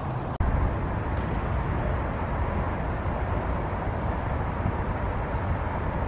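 Steady outdoor background noise, mostly a low, uneven rumble, with a brief dropout about half a second in, after which it is a little louder.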